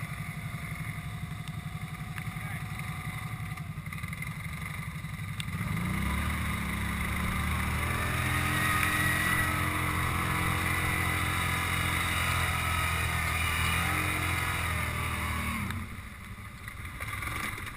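ATV engine running at low revs, then revving up about five seconds in and holding a higher steady pitch for about ten seconds before dropping back near the end.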